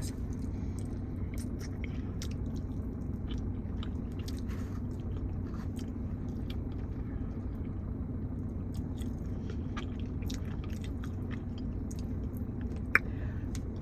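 A person chewing and biting into fried chicken wings close to the microphone, with small crackly mouth and crunch noises, over a steady low hum. A single sharp click near the end.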